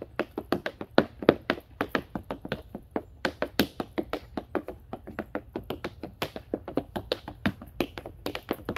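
Tap dancing: the metal taps of tap shoes strike a wooden board in a fast, unbroken stream of sharp clicks, several a second, with some strikes accented louder than the rest.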